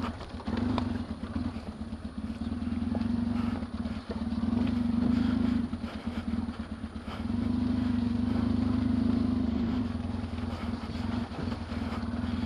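Yamaha XTZ750 Super Ténéré parallel-twin engine running at low speed over a muddy track. The throttle is opened and eased off, so the engine note swells and drops, loudest about five seconds in and again between about seven and ten seconds.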